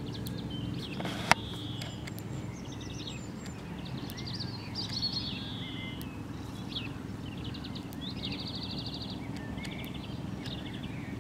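Small wild birds singing outdoors, with quick chirps and fast even trills, over a steady low hum. One sharp click about a second in.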